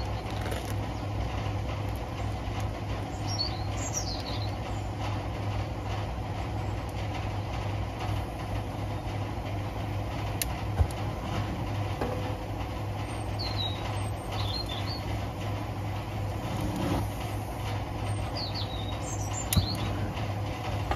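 A steady low hum runs throughout, with birds chirping now and then. An oxy-fuel cutting torch gives a sharp click about halfway and a sharp pop near the end as it is lit to heat seized wheel nuts.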